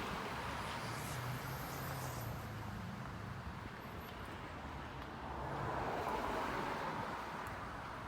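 Street traffic: a steady hum of vehicles, with one swelling louder about six seconds in as it passes.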